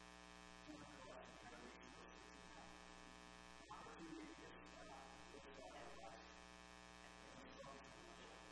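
Near silence with a steady electrical mains hum and buzz.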